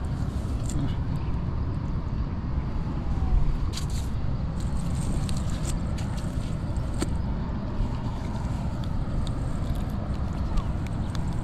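Scattered light clinks and scrapes of a cast net's chain weights and mesh being handled on sand as fish are picked out, over a steady low rumble.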